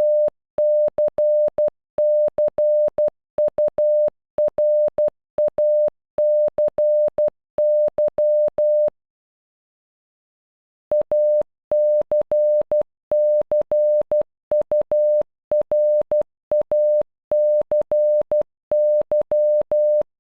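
Morse code beeps, one steady electronic tone keyed into dots and dashes spelling "ACCURACY" (.- -.-. -.-. ..- .-. .- -.-. -.--). The word is sent twice, with a pause of about two seconds between the two runs.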